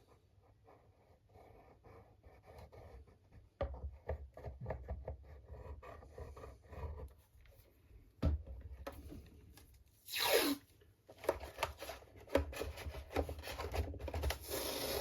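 Hands working on a wooden model boat hull: rubbing, scraping and small knocks of fingers, tools and parts against the wood while glue is worked in. About ten seconds in there is one louder scrape that sweeps down in pitch.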